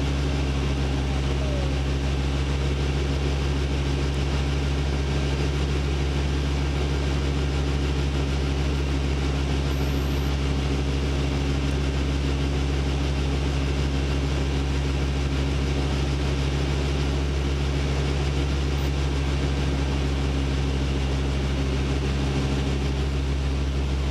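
Motor glider's piston engine running steadily in flight, heard from inside the cockpit as a constant low drone mixed with rushing air noise.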